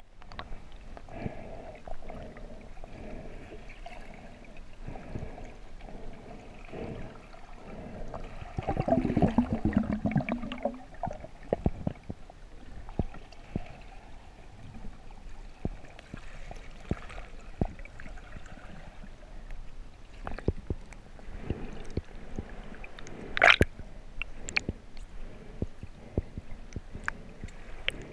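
Muffled underwater sound of a freediver moving through a lake: a dull wash of water with many small clicks and knocks, a louder rush of water about a third of the way in, and one sharp knock near the end.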